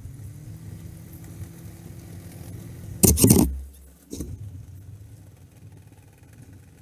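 International 745 XL tractor's four-cylinder diesel engine running steadily while driving a rear-mounted snowblower, growing fainter as the tractor pulls away. A loud, brief rushing burst cuts in about three seconds in.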